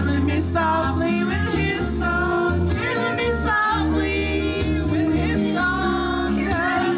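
Two women singing together into a microphone over backing music.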